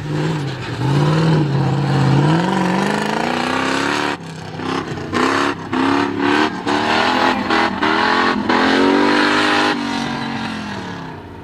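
Off-road 4x4 competition vehicle's engine revving hard, its pitch rising and falling. From about four seconds in it repeatedly cuts out for an instant and picks up again as the throttle is worked.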